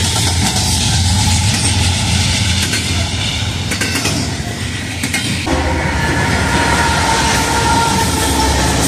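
Freight train passing close by: double-stack intermodal cars rumbling and clattering over the rails. About five and a half seconds in the sound changes abruptly to another passing train, with a locomotive's steady tones over the rumble.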